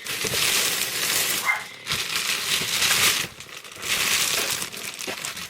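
Packaging rustling and crinkling as a large boxed item is pulled out and handled, in three long stretches with brief pauses between them.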